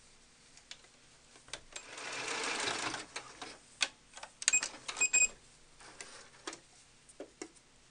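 Computerized sewing machine stitching in a short run of about a second through stretchy scuba fabric, amid clicks of the fabric and presser foot being handled. A little later the machine gives two short electronic beeps.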